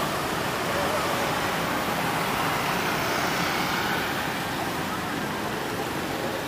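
Steady city traffic noise from cars and motorbikes on the street.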